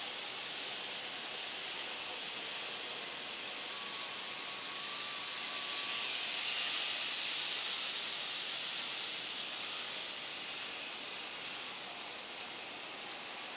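Z gauge model train running on the track: a steady high rushing hiss of wheels and small motor that swells about halfway through as the train passes nearest, then eases off.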